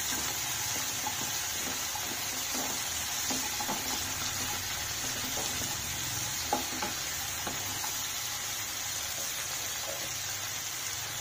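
Chopped onion and tomatoes with whole spices sizzling as they fry in a pan, with a few light knocks from stirring.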